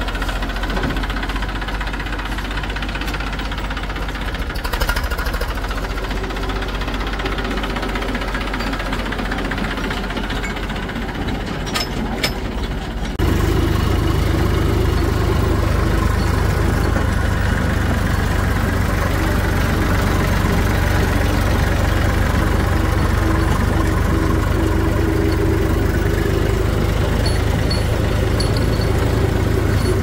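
Eicher 380 tractor's diesel engine idling with a steady clatter, then, after a sudden change about 13 seconds in, running louder and steadier as heard from the driver's seat while the tractor drives along.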